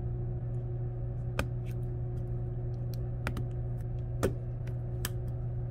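Plastic retaining tabs on a Galaxy A70's midframe popping loose as a metal pry tool is worked around the phone's edge: a series of sharp, small clicks a second or so apart, some louder than others, over a steady low hum.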